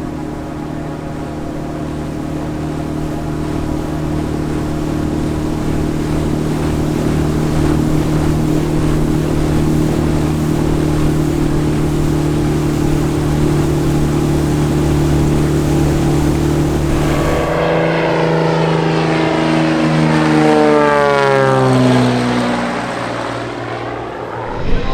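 Propeller airplane flying past: a steady engine-and-propeller drone grows louder, then about 18 seconds in its pitch slides steadily down over several seconds as it goes by.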